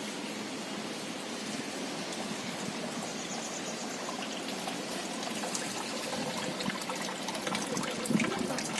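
Water trickling out of a pipe into a grated drain, getting louder from about halfway through. It is the runoff of the milk and water poured over a Shiva lingam.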